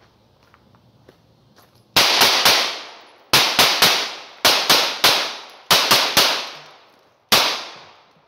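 HK P30L pistol firing 13 steel-case rounds: four quick strings of three shots about a quarter second apart, then a single shot near the end. Each string rings out with an echo before the next.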